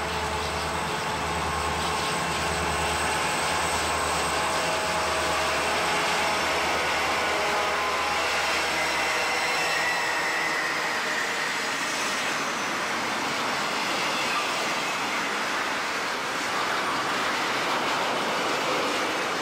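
Rio Grande diesel freight locomotives pass close by with a low, pulsing engine throb that fades about nine seconds in. It is followed by the steady running noise of piggyback flatcars carrying truck trailers, their wheels rolling past on the rails.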